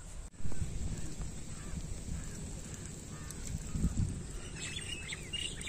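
Open-air ambience: a steady low rumble of wind on the microphone, with birds calling briefly near the end.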